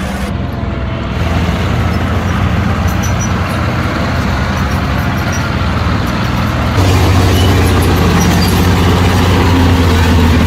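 A heavy engine running steadily with a low hum, getting louder about seven seconds in.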